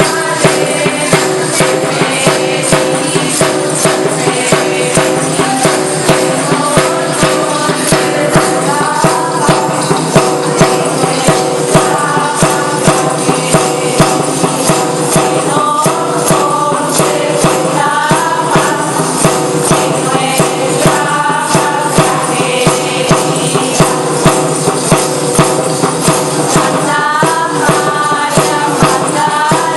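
Asturian folk music: tambourines beating a steady rhythm under a melody carried over a continuous steady drone-like tone.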